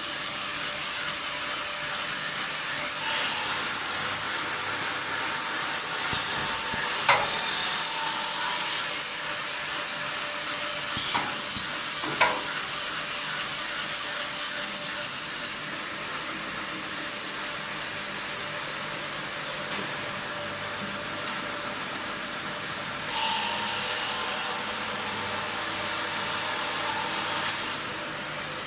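Machine for making metal pot scourers running: a steady whirring hiss with a few sharp clicks, and a brighter, higher-pitched layer for a few seconds near the end.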